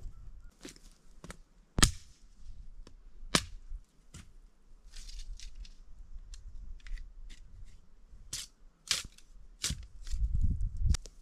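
A string of sharp knocks and clicks, the later ones a machete chopping at a wooden stick, several strikes under a second apart. A low rumble comes in near the end.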